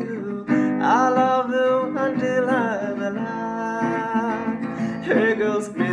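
Acoustic guitar strummed, with a man's voice singing along that slides up in pitch about a second in and again near the end.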